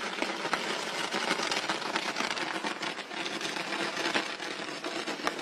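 Fireworks strung in a ladder burning in the sky: a continuous dense crackling and fizzing made of many tiny pops, with a few sharper cracks.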